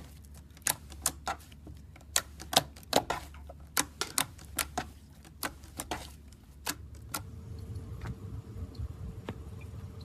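Slime being squeezed and poked, giving off sharp, irregular clicking pops about two or three a second. About seven seconds in, the clicks give way to fainter, sparser ones over a low rumble and a steady hum.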